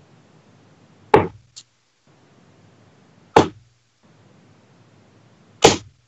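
Three steel-tip darts hitting a bristle dartboard, one at a time, about two and a quarter seconds apart.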